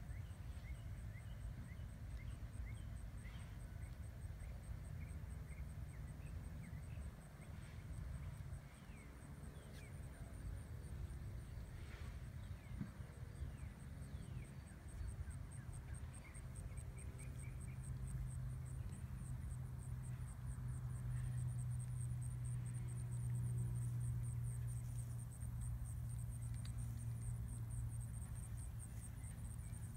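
Insects trilling steadily in a fast, high-pitched pulse, over a low steady rumble that swells in the second half, with a few faint short chirps here and there.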